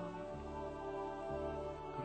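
Slow, soft worship-song accompaniment of long held chords between sung lines. The bass note changes about half a second in and again just past a second in.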